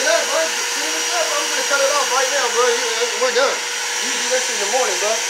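Shop vacuum running steadily, its motor drone and airflow through the hose constant, with a held whine. A person's voice rises and falls over it in wavering pitched sounds.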